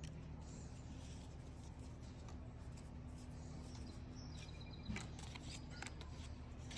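Trading cards being handled and flipped through, faint soft rustles over a steady low room hum, with a small click about five seconds in.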